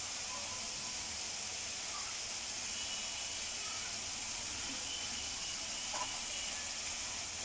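Masala sizzling gently in oil in a kadhai, a steady hiss. The masala is cooking down and the oil has begun to separate from it. A faint click about six seconds in.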